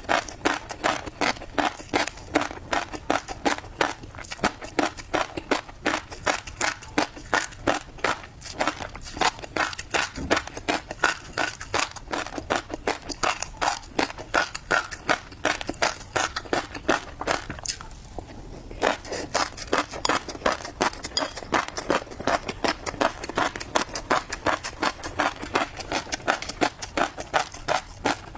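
Close-up chewing of tobiko (flying fish roe), the small eggs crunching and popping in steady rhythmic bites, about three to four crunches a second, with a brief pause about two-thirds of the way through.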